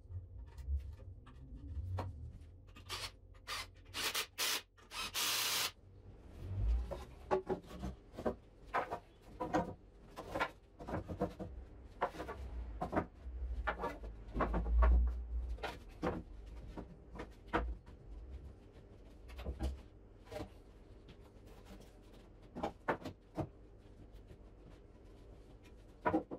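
Wooden shelf brackets being fixed to a wall and timber boards handled: a busy run of knocks, clacks and rubbing of wood. There are a few short harsh bursts about three to five seconds in, and heavy thumps around the middle. The knocks thin out toward the end.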